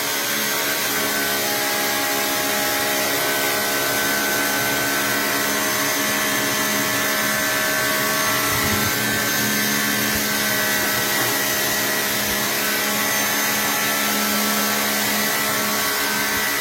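An electric motor running steadily with an even whine and no break.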